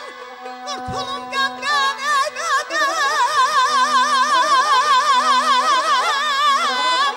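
A male mugham singer sings in the Azerbaijani classical style. After a few short phrases, from about two and a half seconds in he holds one long high note with a fast, even trill-like warble, the throat ornament typical of mugham, over a low steady note from the accompaniment.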